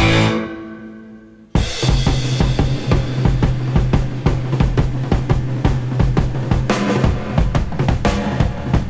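Rock background music: one song fades out, then about a second and a half in a new track starts suddenly with a busy drum kit and a steady bass line.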